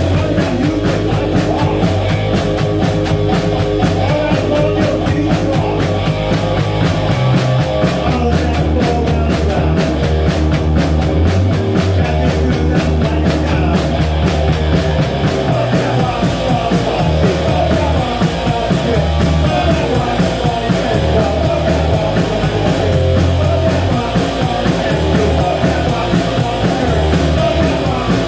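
Rock band playing live: distorted electric guitar, electric bass and drum kit, with a man singing into the microphone. The bass notes shift every few seconds under steady drumming.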